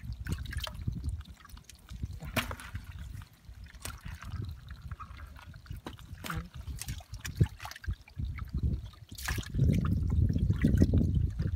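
Hands groping and sloshing through shallow muddy water in a small pit, with scattered small clicks; the splashing is loudest near the end.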